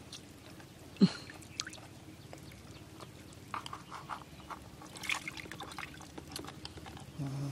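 Hands moving in shallow river water as freshwater clams are lifted out: small splashes and trickling, with scattered light ticks and one sharp tap about a second in.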